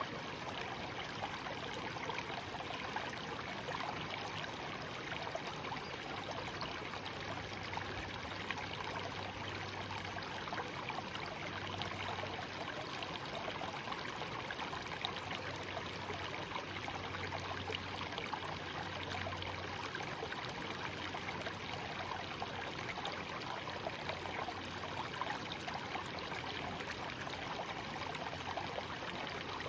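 A shallow stream babbling steadily over stones, an even rushing flow with fine trickling detail.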